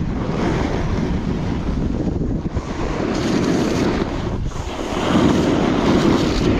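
Wind rushing over a chest-mounted action camera's microphone, mixed with the hiss of a Coiler alpine snowboard's edge carving groomed snow. The sound swells with each turn, loudest about three seconds in and again near the end.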